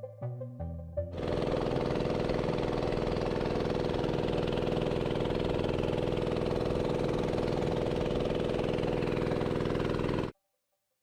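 A small engine running steadily at an even pitch. It starts abruptly about a second in and cuts off suddenly near the end.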